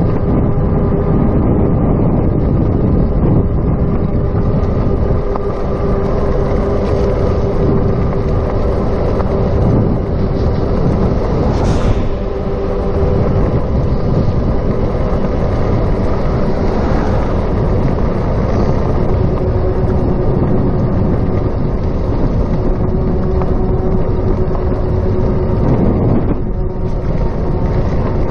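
Electric bicycle riding along: wind rushing over the chest-mounted camera's microphone and tyre noise, with a steady hum alongside. A brief sharp noise comes about twelve seconds in.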